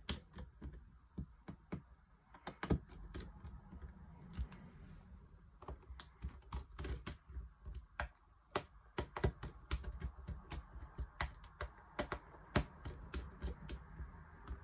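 Irregular small sharp clicks and taps, several a second, of a Torx screwdriver tightening the small screws that hold a MacBook Pro's display assembly.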